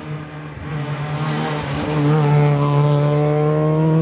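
Rally car engine at high revs under hard acceleration, getting louder as it approaches over the first two seconds, then held loud with its pitch climbing steadily through a single gear.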